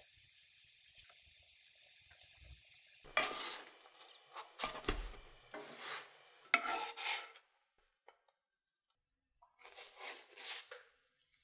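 A wooden spatula scraping and rubbing against a nonstick frying pan and the bread as a puffed flatbread is turned, in several short strokes, with a soft thump about five seconds in. About ten seconds in, another short scrape as the spatula slides a bread onto a stack on a plate.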